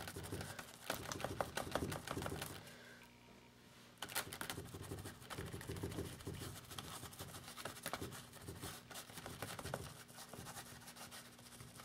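Foam brush dabbing thick black acrylic paint through a plastic stencil onto a paper journal page: quick, soft, scratchy taps in a dense run, pausing briefly a few seconds in.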